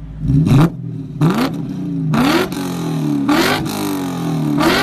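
BMW E39 M5's 4.9-litre V8 blipped through its exhaust about five times, roughly once a second. Each rev rises quickly and falls back slowly toward idle, and the first is the loudest.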